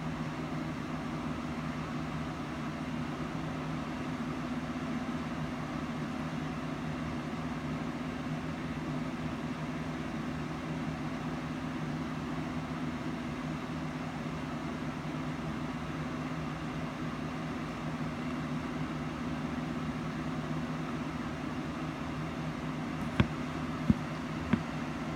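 A steady mechanical hum, with three sharp clicks close together near the end.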